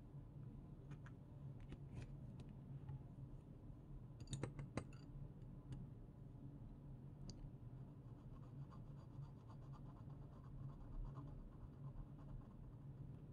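Glass dip pen nib scratching faintly on paper as an ink swatch is drawn. About four seconds in there are a few light clinks of glass against the ink bottle.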